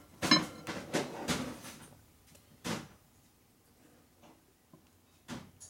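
Metal clinks and knocks as a brake caliper and its bracket are shifted against the disc rotor to line up the bolt holes: a cluster of short clinks in the first second and a half, then one knock about 3 s in and another near the end.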